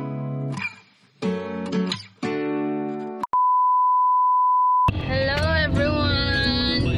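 Acoustic guitar music with strummed chords, cut off about three seconds in by a click and a steady 1 kHz test-tone beep that lasts about a second and a half, the tone that goes with colour bars. Then several voices at once, children among them, inside a car.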